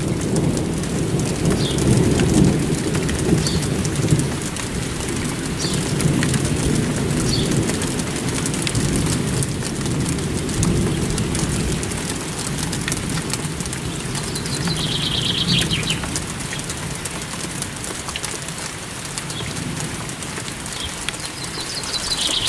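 Steady rain falling on roofs and gardens, with a low rumble underneath. A bird chirps a few times about two-thirds of the way in.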